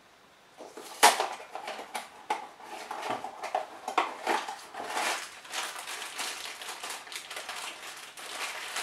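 A small cardboard Funko Mystery Minis blind box being pulled open with a sharp snap about a second in, then rustling and crinkling as the foil bag inside is drawn out and handled.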